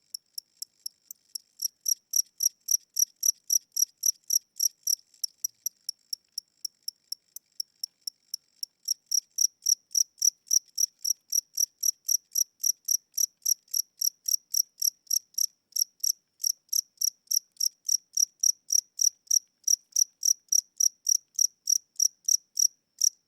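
A single cricket chirping in a slow, even series of short, high chirps, about three a second, softer for a stretch near the start and again in the middle, and stopping at the very end. The slow tempo is what the owner takes for a tired or old cricket whose wings are getting weak.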